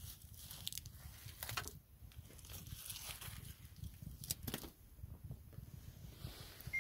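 Dry wood shavings and chips rustling as a handful of kindling is scooped up by hand, with a few sharper clicks of chips knocking together.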